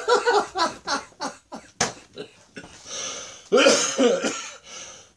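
A man laughing in short bursts, then coughing in the second half.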